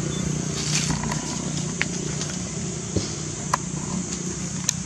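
A macaque eating from a foil snack packet: a few short, sharp clicks and crinkles of the packet against a steady low hum and high hiss.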